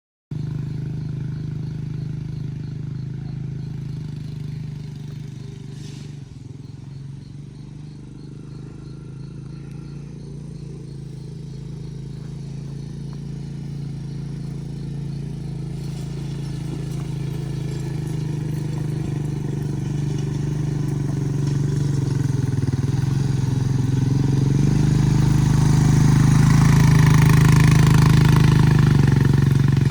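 A motor vehicle's engine running steadily at a low pitch, getting louder over the last several seconds.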